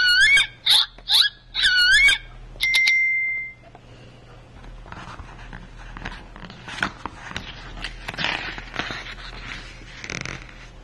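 Recorded dolphin whistles played through the sound book's small speaker. A quick string of high chirping whistles over the first two seconds ends in one held whistle. From about four seconds on comes soft paper rustling and handling as the page is turned.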